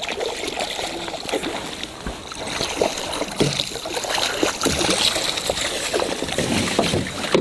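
Water lapping and splashing against the hull of a drifting boat, a dense, continuous wash of small splashes and drips.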